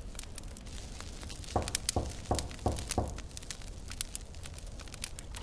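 Five quick, evenly spaced knocks on a door, over a faint crackle.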